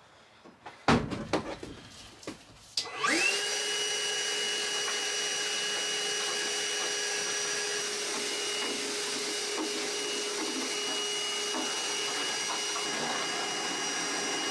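A few knocks and clatters, then about three seconds in a vacuum cleaner switches on, its motor whining up to speed and then running steadily.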